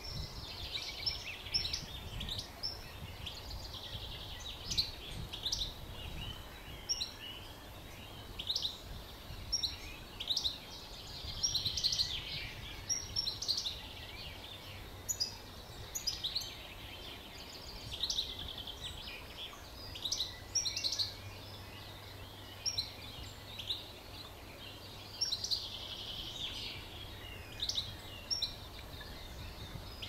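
Several songbirds singing at once: short chirps, whistles and trills overlapping throughout, over a steady low rumble.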